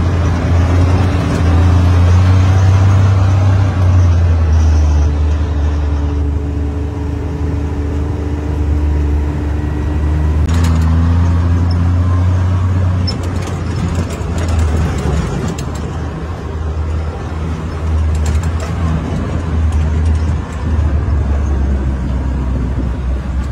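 Engine of an off-road side-by-side utility vehicle running as it drives along a dirt track: a steady low drone whose pitch shifts a couple of times with engine speed. Short clicks and knocks join in from about halfway through.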